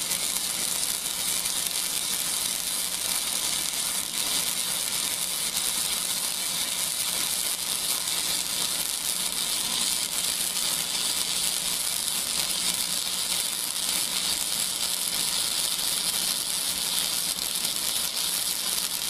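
Lincoln Weld Pack 100 wire-feed welder arc sizzling steadily and without a break while a weld bead is run along an angle joint between two pieces of flat bar.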